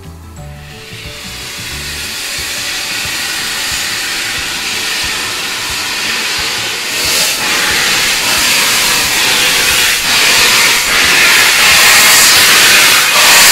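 Steam hissing from the cylinder drain cocks of LNER K1 steam locomotive 62005 as it starts away from the station. The hiss grows steadily louder as the engine draws near and is loudest in the second half, with a few brief surges.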